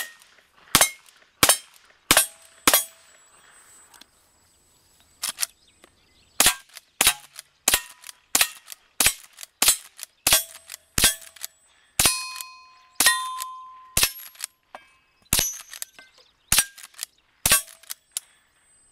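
Ruger Single Six .22 revolver firing five quick shots, then after a pause of about two seconds a Henry lever-action .22 rifle firing a long string of shots, roughly one every half second to second. Several hits leave steel targets ringing with a short metallic ping.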